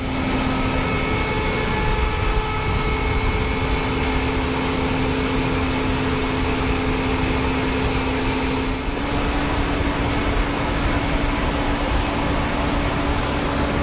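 Tractor engine running steadily, with a constant hum whose pitch steps slightly higher about nine seconds in.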